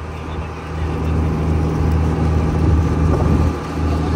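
Engine of a small passenger boat running under way, a steady low drone that gets louder about a second in.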